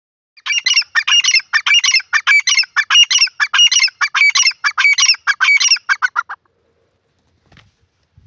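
Grey francolin calling: a rapid run of repeated harsh notes lasting about six seconds, then stopping, with a couple of faint low knocks near the end.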